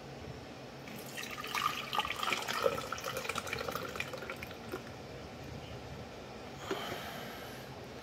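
Water poured from a glass carafe into a coffee maker's water tank, splashing and trickling in from about a second in and tapering off after about four seconds.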